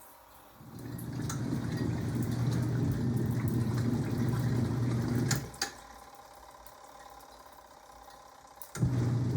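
Portable twin-tub washing machine on its wash cycle: the motor hums steadily as water churns in the tub. It stops a little past halfway and starts again near the end, in the stop-start pattern of a wash agitator.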